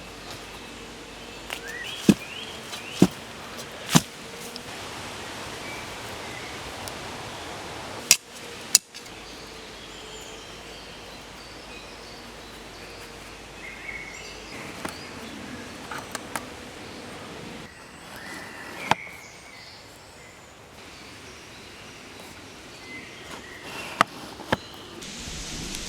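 Digging a tunnel in earth for a Dakota fire hole: a handful of sharp knocks at irregular intervals from the tool striking soil and roots, over the steady noise of wind in the trees.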